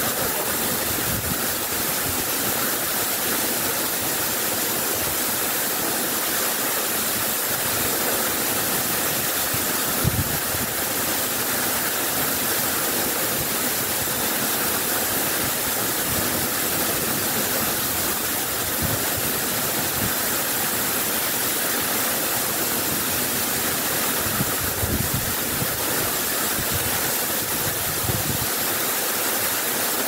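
Waterfall pouring into a rock pool: a continuous, even rush of falling water.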